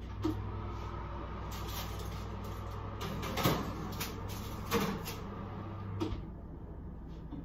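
Roasting tray of beef being put into a built-in electric oven: a few sharp knocks and clunks of metal and the oven door, the loudest about three and a half seconds in. Under them a steady low hum stops suddenly at the last knock, about six seconds in.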